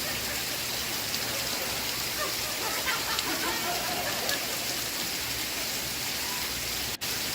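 Steady rain, with faint television sitcom audio murmuring underneath. The sound drops out for an instant near the end.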